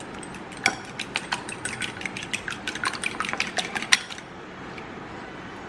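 A metal fork beating a raw egg in a ceramic bowl: rapid clinks of the fork against the bowl for about three seconds, stopping about four seconds in.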